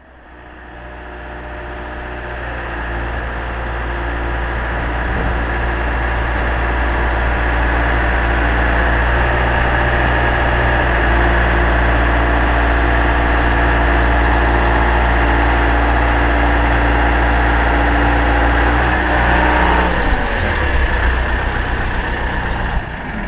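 A large engine running steadily, growing louder over the first several seconds, then holding steady until its pitch drops about twenty seconds in.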